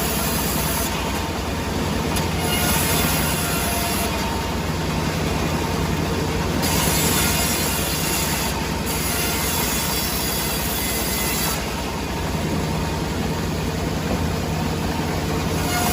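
Sawmill saw machinery running steadily, with a loud, even mechanical noise and a high hiss that comes and goes every few seconds as the cut runs.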